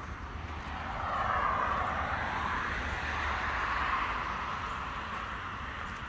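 Road traffic passing by: tyre and engine noise swelling about a second in, peaking twice and fading away over several seconds, over a steady low rumble.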